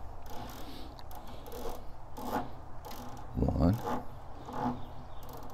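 Rifle scope turret being dialled by hand, a run of rasping clicks and rubbing as it is turned through its revolutions, with a short low sound falling in pitch about three and a half seconds in.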